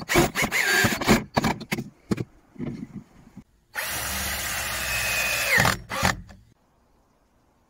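Cordless drill driver driving screws into timber. It starts with short stop-start bursts of the motor for about two and a half seconds. About four seconds in it runs steadily for about two seconds, its whine dropping at the end, and a last short burst follows.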